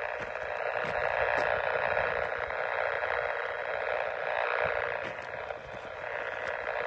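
Powerline interference heard through a radio receiver's speaker on the 2-meter band: a steady, raspy static buzz whose strength swells and dips a little as the Yagi antenna is swung around. It is the noise from power-pole hardware that is not behaving well.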